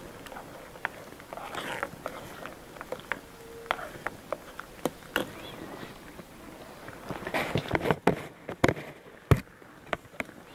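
Scattered light clicks and knocks, with a quick run of louder knocks near the end.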